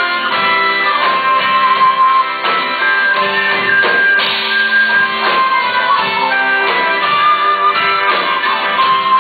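Live rock band playing an instrumental break: an electric guitar takes a solo of held, bending notes over strummed chords and a steady beat.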